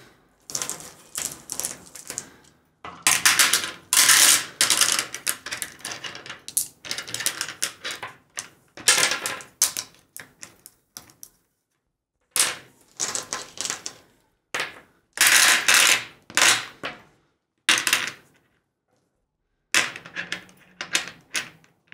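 Sugared almonds (confetti) clicking and clattering against a clear plexiglass box and each other as they are dropped in one by one. The clicks come in quick runs with short pauses between them.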